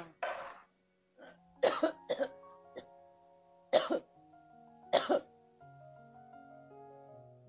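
A person coughing in several short, loud fits, some in quick pairs, over background music of slow held notes.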